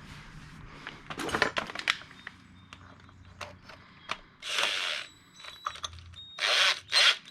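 Ratchet wrench clicking in short strokes, mixed with the clatter of tools and small metal parts being handled.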